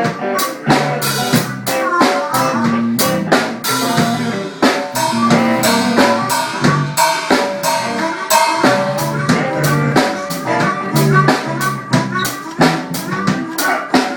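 A live band playing with a drum kit keeping a steady beat on kick, snare and rimshots, under bass and sustained pitched instrument lines.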